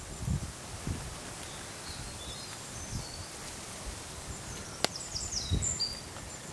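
Quiet outdoor background with a bird chirping a quick run of high, stepped-down notes about five seconds in. A single sharp click comes just before the chirps, and a few soft low knocks come from a wooden spatula stirring rice and milk in a pot.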